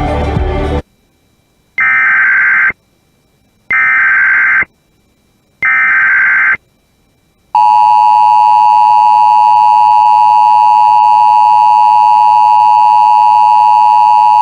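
Emergency Alert System alert opening: three short bursts of SAME header data tones, each about a second long with a second's gap, followed by the steady two-tone EAS attention signal (853 and 960 Hz together) starting about halfway through. Background music cuts off about a second in.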